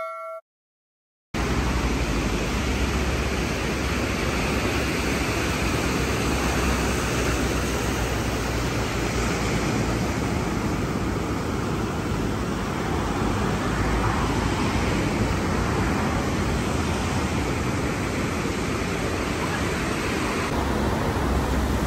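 A loud, steady rushing noise with a constant low rumble beneath it, starting suddenly about a second in.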